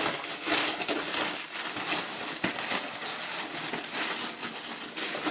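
Thin waterproof nylon rain cover crinkling and rustling as it is unfolded and pulled out over a backpack, a steady run of small crackles.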